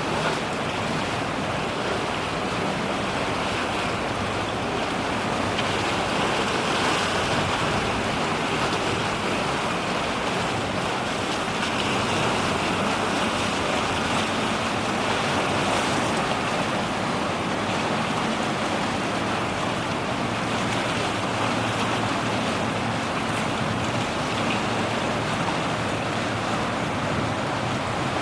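Steady rush of waves and wind at the seashore, with a faint low hum underneath.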